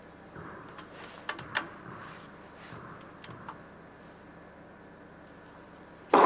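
A tennis racket strikes the ball on a serve near the end, one sharp loud crack that rings on briefly in an indoor hall. Before it the hall is quiet apart from a few faint clicks and taps.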